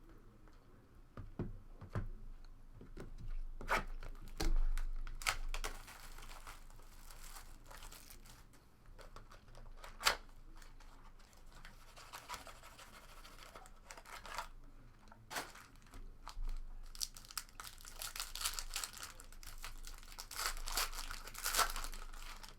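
Trading-card pack wrappers being torn open and crinkled, with scattered sharp snaps and clicks from handling the packs and cards. The crinkling is thickest near the end.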